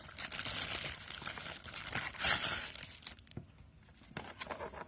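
Packaging of a small Android TV box crinkling and rustling as it is handled and unwrapped, loudest about two seconds in, then dying down to a few light clicks and taps.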